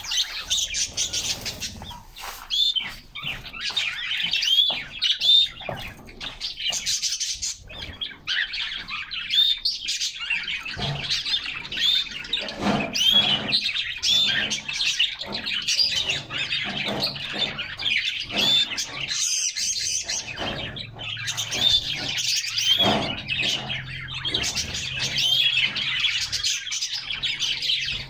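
Several canaries chirping and singing without pause, a steady stream of short, quick, bending chirps, with scattered clicks and wing flutters as the birds move about the cage.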